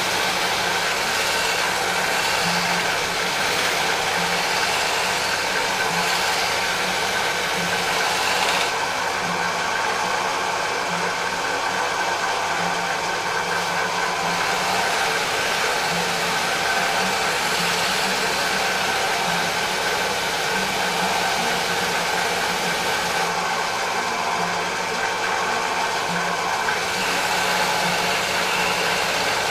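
Drill press running with a polishing wheel in its chuck while a brass piece on a wooden block is held against the spinning wheel: a steady motor hum under a scrubbing hiss that changes in strength a few times.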